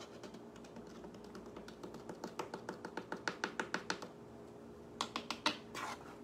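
A measuring spoon tapping quickly against the mouth of a plastic water bottle, about six light taps a second, knocking baking soda into the bottle. The taps grow louder, then stop, and a few sharper knocks and a short scrape come near the end.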